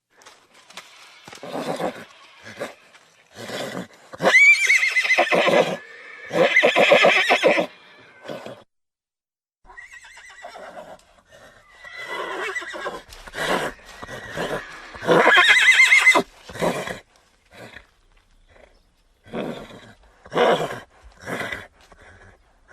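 Horses neighing and whinnying: a string of calls, with two long whinnies whose pitch rises and then falls, about 4 s and 15 s in, and shorter calls between them.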